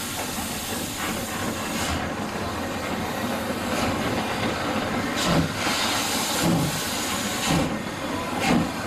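Deutsche Reichsbahn class 50 2-10-0 steam locomotive with a steady hiss of steam. From about halfway through it gets under way with slow exhaust chuffs about once a second.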